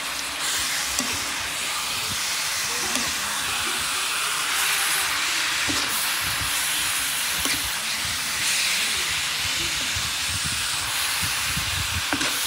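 Goat meat sizzling in a hot metal pan as it is stir-fried: a steady hiss, with a short scrape or knock of the metal spatula against the pan every few seconds.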